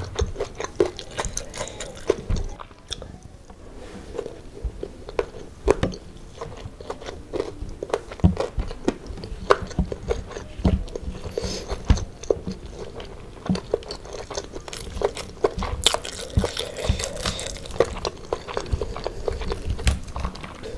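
Close-miked chewing and biting of crispy fried chicken with rice, eaten by hand: irregular crunches and clicks with short pauses.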